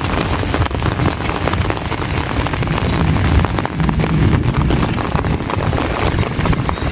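Heavy rain falling steadily, with dense patter of drops and wind rumbling over the phone's microphone.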